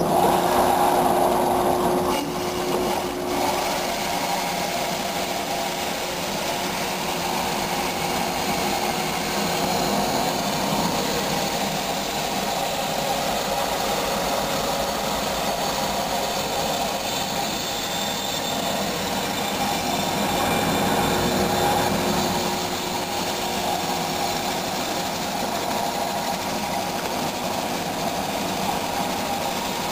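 Planetary abrasive belt tube grinder running steadily, its orbiting A65 Trizac belts grinding and polishing a bent exhaust pipe as it is fed through the machine.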